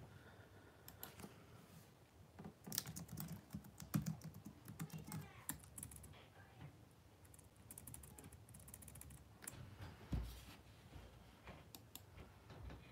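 Quiet, irregular typing and clicking on a computer keyboard, coming in short flurries, with a dull low thump about ten seconds in.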